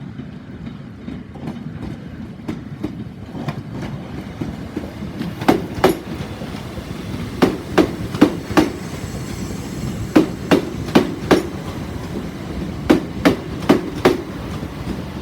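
Class 377 Electrostar electric multiple unit rolling slowly through the platform, its wheels clicking over a rail joint in sets of four as each pair of bogies passes, about every two and a half seconds, over a steady low rumble.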